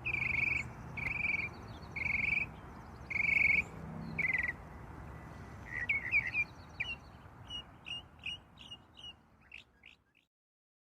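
Birds calling: five drawn-out calls about a second apart, then a run of short quick chirps, over a low steady background noise that fades out shortly before the end.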